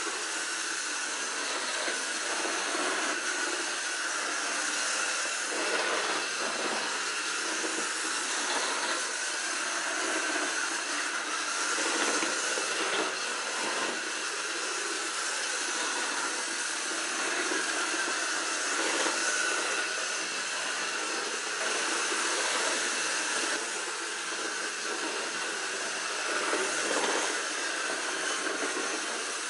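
Hornby OO gauge BR Standard Class 7MT Britannia model locomotive running round a test track: a steady whir of its small electric motor and gearing with its wheels on the rails, swelling and fading a little as it goes round. It runs freely after repair of its motor and re-securing of the drive cog to the motor shaft.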